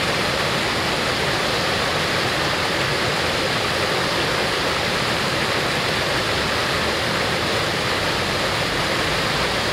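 Small waterfall pouring over a stepped cascade into a rocky stream, the water rushing steadily.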